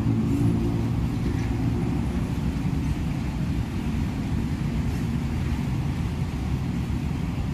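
Bulk cement tank wagons of a freight train rolling past: a steady low rumble of wheels on the rails.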